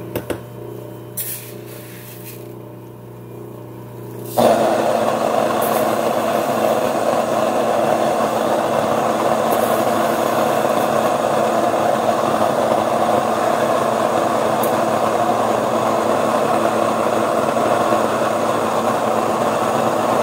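An Ankarsrum stand mixer hums steadily on low as it kneads a large batch of bread dough, with a few clicks in the first second or two. About four seconds in, an electric wheat mill (Mockmill) switches on suddenly and runs loud and steady, grinding wheat into flour.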